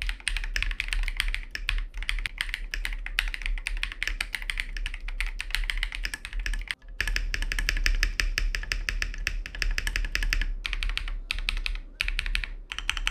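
Typing on a KiiBOOM Phantom 81 V2 mechanical keyboard: fast, continuous key clacks, with a brief break about seven seconds in and a few short pauses near the end.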